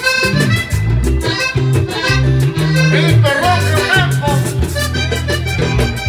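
Live vallenato music led by a button accordion, over deep bass notes and a quick, steady hand-drum beat.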